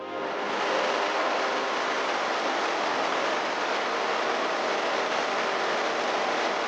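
Waterfall: a steady, loud rush of falling water, which starts suddenly and fades near the end.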